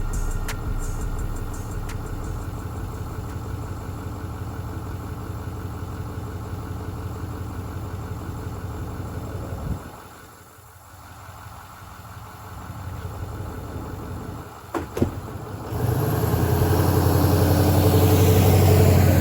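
An engine idling steadily, falling away about ten seconds in. After a sharp click, an engine runs louder with its pitch climbing toward the end.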